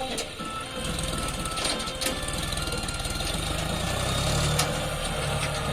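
John Deere 5050D tractor's three-cylinder diesel engine running with an even knocking beat, its rumble swelling about four seconds in, with a few sharp clicks.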